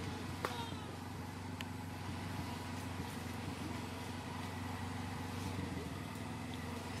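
Steady low mechanical hum, like an engine or motor running without change. There is a short sharp click with a brief falling squeak about half a second in.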